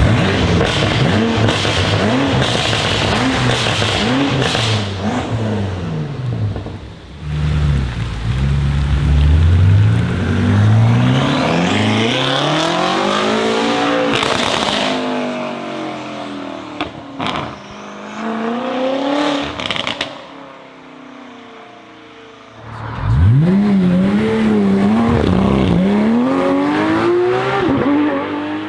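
Several high-performance car engines, one after another, revving in short blips and accelerating hard, the engine note climbing and dropping, with a few sharp cracks midway.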